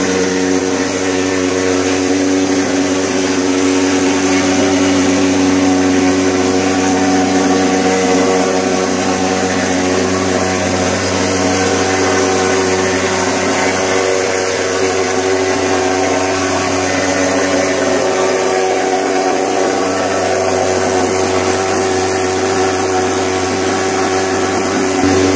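Superfogger TH 160 portable thermal fogger's pulse-jet engine running steadily while discharging fog: a loud, even, pitched drone.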